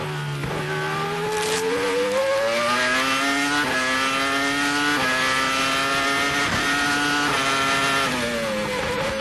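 Onboard sound of a 2002 Arrows Formula One car's Cosworth V10 engine at high revs, its pitch climbing as the car accelerates, with brief breaks at gear changes. About 8 s in, the revs drop as the car slows.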